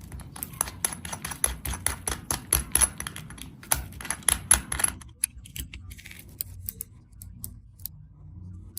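Rapid light metallic clicks and clinks for about five seconds, then a few scattered ones. The sound is a steel watch and its bracelet being handled while its case back is taken off to show the movement.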